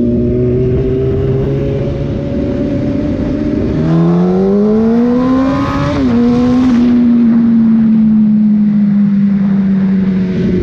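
Sport motorcycle's inline-four engine running steadily, then revving up under acceleration for about two seconds. Its pitch drops sharply as it shifts up a gear, then holds a steady, slowly falling note.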